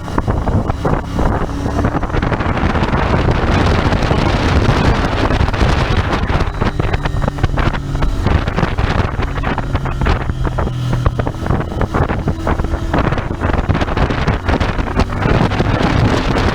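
Royal Enfield Interceptor 650's 648 cc parallel-twin engine running while riding on the road, largely buried under wind rushing over an open microphone. The engine note shifts slightly in pitch a few times.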